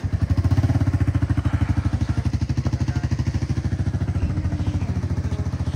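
Motorcycle engine running under way, a steady rapid low pulsing that grows a little louder about half a second in.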